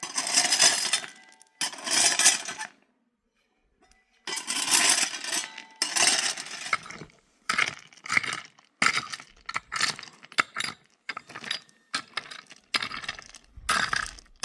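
Repeated scraping and clinking of hard objects: strokes about a second long at first, then quicker, shorter ones.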